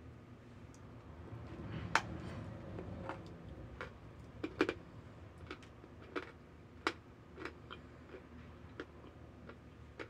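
Chunks of hardened cornstarch being bitten and chewed: irregular sharp crunches and clicks, the loudest about two seconds in.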